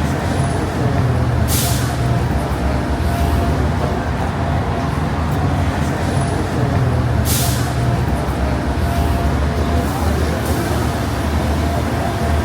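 A large vehicle's engine running steadily, with two short hisses of air about six seconds apart.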